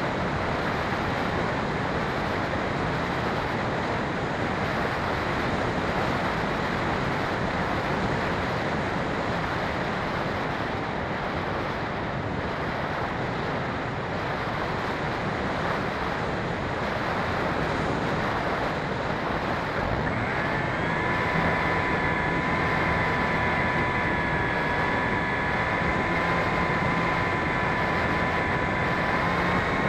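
Air rushing over the onboard camera of a Phoenix 2400 RC motor glider in flight. About two-thirds of the way in, the electric motor and propeller start up with a steady whine that rises slightly near the end.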